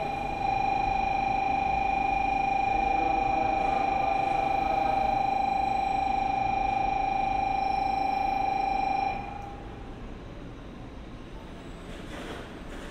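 Station platform warning buzzer sounding one steady electronic tone for about nine seconds as a JR West 500 Series shinkansen pulls in, then cutting off. After that only the low rumble of the train rolling slowly into the platform remains.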